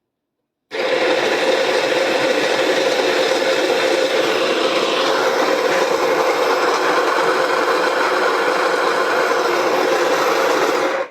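Electric burr coffee grinder's motor running and grinding beans, a loud steady whirring rattle that starts about a second in and stops abruptly near the end.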